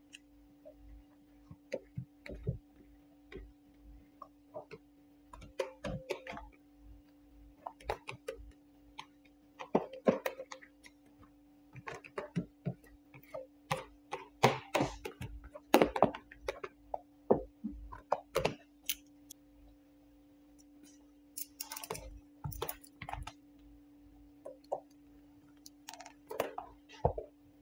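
Clear paint protection film being handled and squeegeed onto a wooden workbench top: irregular taps, clicks and scrapes, thickest in the middle and again near the end, over a steady low hum.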